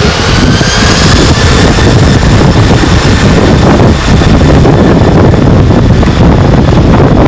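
Boeing 747-400 Freighter's four jet engines at takeoff thrust: a loud, steady jet roar with a whine that rises in pitch over the first couple of seconds.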